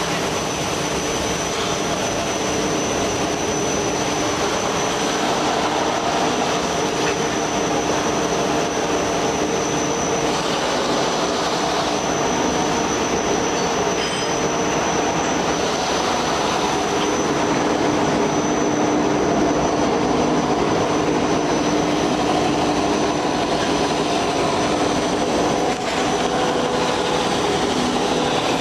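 Automatic wood sanding machine with disk sanders and sanding rollers running steadily: a dense, even whirring with a few steady whining tones held throughout.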